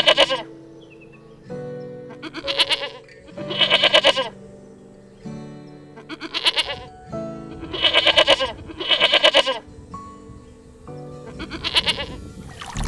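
Sheep bleating repeatedly, about seven wavering calls a second or two apart, over background music with steady held notes.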